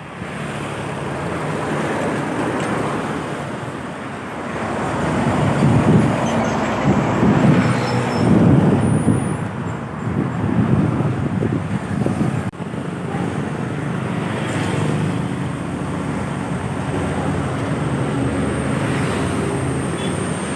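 Road traffic with a heavy vehicle's engine running close by, swelling louder for several seconds in the middle. There is a sudden break about twelve seconds in, after which the steady traffic drone carries on.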